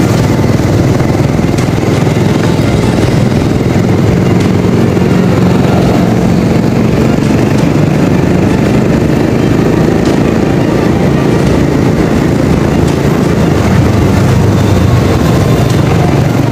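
Steady vehicle engine and road noise from a vehicle travelling along a city road.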